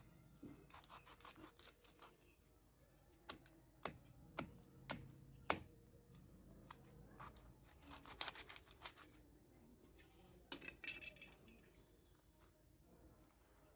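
Knife cutting through a raw whole chicken on a wooden chopping block: a scatter of sharp cracks and clicks as the blade goes through bone and joints, the loudest about five and a half seconds in, with short bursts of crunching around eight and eleven seconds.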